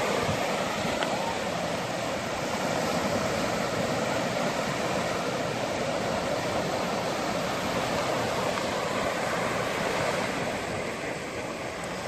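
Sea waves breaking and washing up a sandy beach: a steady, even rushing that rises a little near the middle and eases slightly toward the end.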